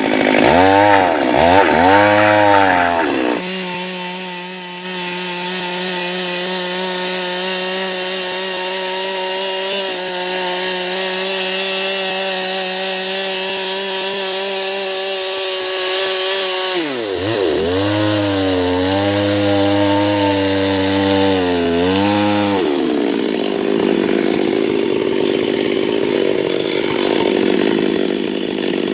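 Chainsaw engine revving up and down several times, then running at a steady high speed for about thirteen seconds. It revs up and down again, and for the last six seconds a rougher, noisier sound takes over.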